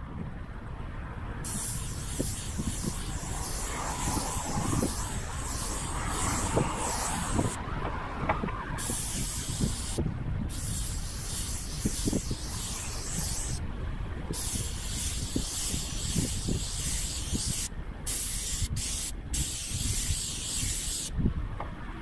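Airless paint spray gun hissing as it sprays undercoat onto a corrugated steel roof. The gun is triggered in passes of a few seconds with short breaks between, then in a few quick short bursts near the end. A steady low rumble runs underneath.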